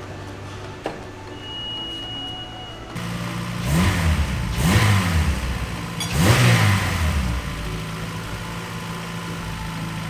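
Turbocharged Honda B18C5 engine of an Integra Type R starting about three seconds in, revved three times and then settling into a steady idle, now repaired after a knock traced to the crank pulley keyway. A click and a short steady high tone come before the start.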